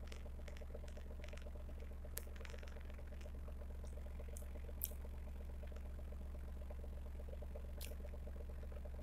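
Steady low mechanical hum, with a few faint clicks and crackles over it; three sharper clicks, the loudest a little past the middle.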